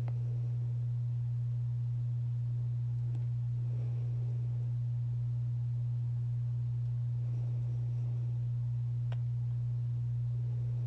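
A steady low electrical hum on a single unchanging tone, with two faint clicks.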